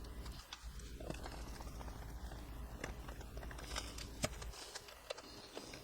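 Faint, scattered small clicks and taps of an HO scale model railroad car's trucks being fitted and screwed back on by hand, over a low steady hum.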